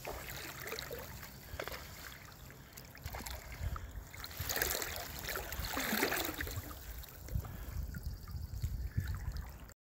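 Creek water lapping and trickling, with wind rumbling on the phone's microphone; the sound cuts off suddenly near the end.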